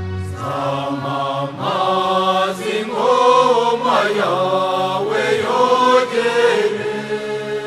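Slow, chant-like sung hymn in Kinyarwanda: voices with gliding, held notes over a steady, sustained low accompaniment. The singing comes in just after the start and fades near the end.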